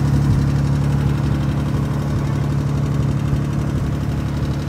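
1946 Dodge Power Wagon's flathead six-cylinder engine idling steadily, freshly tuned up with new points, condenser, cap, rotor and spark plugs.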